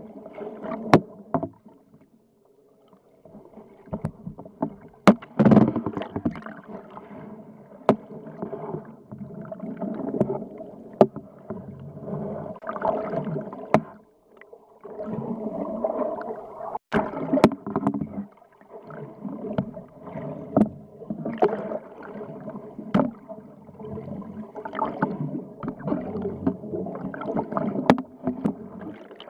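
Muffled underwater sound picked up by a camera below the surface: water gurgling and rushing against the housing over a low steady hum, with sharp clicks every few seconds. It drops almost to nothing twice, for a moment each time.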